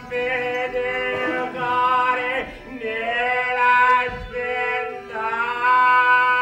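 Men's voices singing a long, wailing chant in held notes, breaking briefly between phrases.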